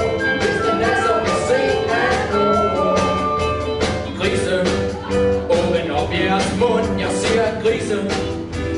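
Music with a steady beat, with some singing in it.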